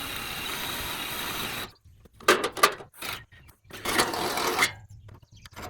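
Electric drill running steadily into metal for a bit under two seconds, then stopping. A few sharp knocks follow, and then the drill runs again for about a second.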